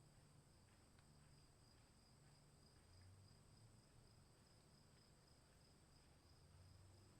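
Near silence: faint, steady high-pitched insect chirring, likely crickets, over a faint low rumble.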